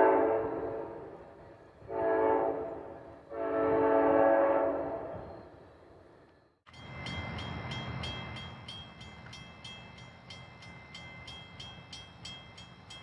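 Amtrak P42DC locomotive horn sounding a short blast and then a long one, the end of a grade-crossing horn sequence, fading away. After a sudden cut about two-thirds of the way in, a quieter grade-crossing bell rings evenly, about two to three strikes a second.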